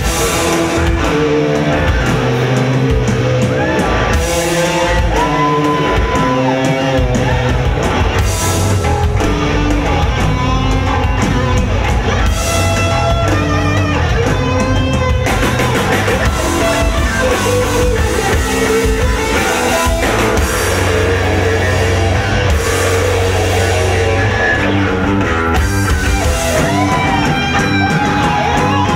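Live rock band playing loud and without a break: electric guitar and bass guitar over a drum kit.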